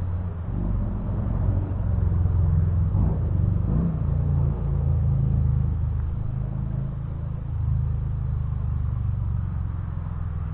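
An engine running steadily, heard as a low rumble.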